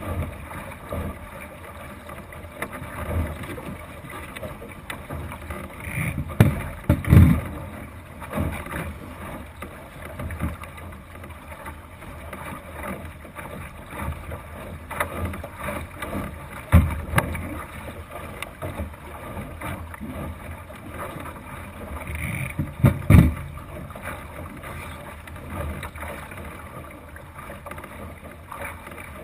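Water rushing along a Thistle sailing dinghy's hull as it sails heeled through choppy water, with wind on the microphone. Three loud low thumps, about 7, 17 and 23 seconds in, and a few softer knocks break the steady wash.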